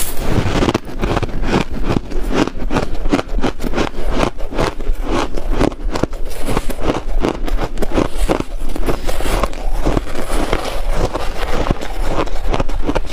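Crunching of shaved ice close to a lapel microphone: a rapid, steady run of crisp crunches from chewing mouthfuls of the ice and a spoon scooping through a tray of it.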